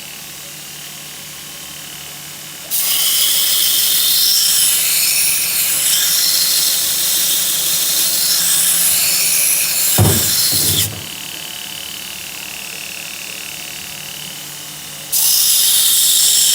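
Power grinder working steel: the motor hums steadily, and in two long spells the tool bites into the metal with a loud, harsh high hiss, from about three seconds in to about eleven and again near the end. A single knock comes just before the first spell ends.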